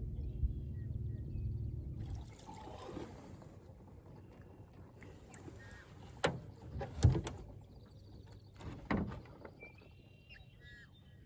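A steady low motor hum that cuts off about two seconds in, followed by quiet open-air sound in a small boat with three sharp knocks and a few bird chirps near the end.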